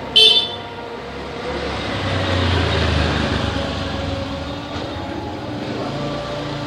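A motor vehicle passes by, its noise swelling to a peak about halfway through and then slowly fading. A brief, sharp, high-pitched beep sounds right at the start.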